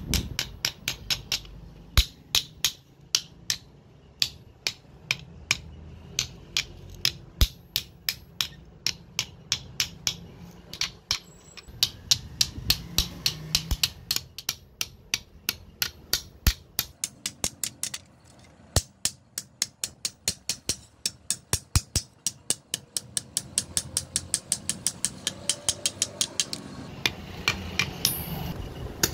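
Small hammer tapping nails through wooden handle scales onto a knife's tang, struck against an anvil block: runs of quick, light, sharp taps, a few each second, with short pauses between runs.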